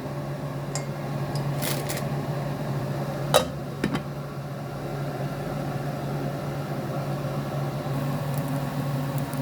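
Steady hum of a kitchen appliance motor, with a single sharp clink of a utensil or pot about three and a half seconds in.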